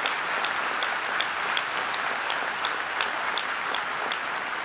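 A large seated audience applauding steadily, with a few individual claps standing out sharply.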